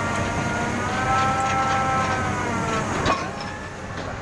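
Rotary bored-pile drilling rig at work, its kelly bar turning in the slurry-filled casing: a steady heavy-machine drone with a whining tone that bends gently in pitch. About three seconds in the sound changes abruptly, after a click, to a quieter machinery drone.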